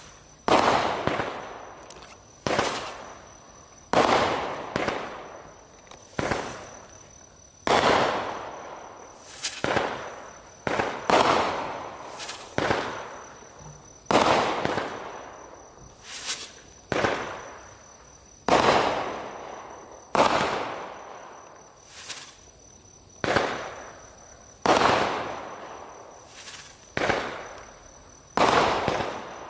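A 19-shot consumer fireworks cake (PTF2533 Blue Explosion) firing shot after shot into the air. It sets off a sharp bang about every second or so, each trailing off in an echo as the shells break into bursts overhead.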